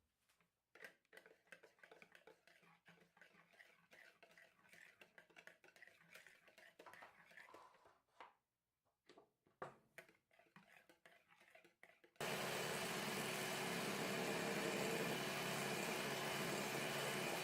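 Light, irregular clicking and scraping of utensils in a mixing bowl, then about twelve seconds in an electric mixer starts abruptly and runs at a steady whirr, beating the cheesecake batter.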